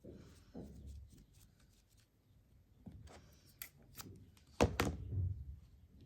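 Hands handling embroidery thread and craft materials on a work surface: faint rustling and small scattered clicks, with a couple of sharp clicks or knocks about four and a half seconds in.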